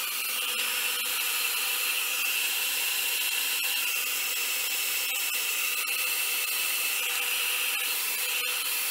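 Handheld blow dryer running steadily, a rush of air with a high whine over it.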